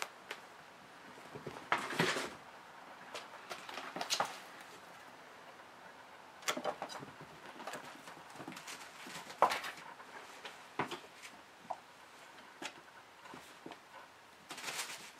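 Kittens running, pouncing and wrestling on carpet and against carpeted cat furniture: scattered soft thumps and scuffles, with a few sharper knocks.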